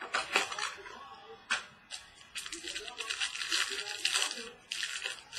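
Foil wrapper of a baseball card pack being torn open and crinkled by hand, in several short bursts.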